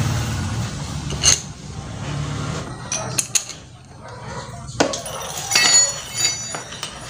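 Metal hand tools and engine parts clinking and knocking as the scooter's valve cover is closed back up after a valve-clearance adjustment: a few sharp knocks, then a short run of ringing metallic clinks.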